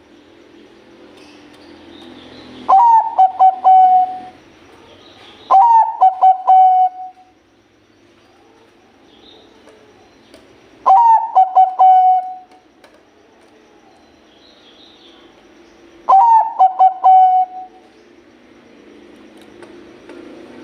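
Zebra dove (perkutut Bangkok) cooing: four phrases a few seconds apart, each a quick stuttering run of short notes that ends in one held coo.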